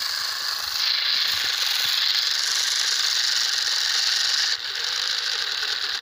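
Small electric motor and gearing of a homemade toy tractor running flat out in a steady high whir, with a short dip about four and a half seconds in. The tractor is straining against a heavily loaded trolley, its rear wheels spinning in loose dirt without pulling it free.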